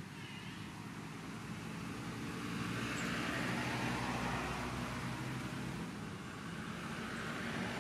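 Road traffic noise: a steady rumble that swells for a few seconds in the middle, then eases.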